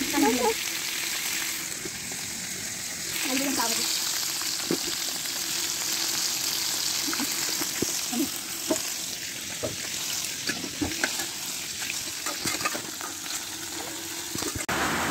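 Fish steaks shallow-frying in oil in an aluminium kadai: a steady sizzle with scattered sharp pops and ticks.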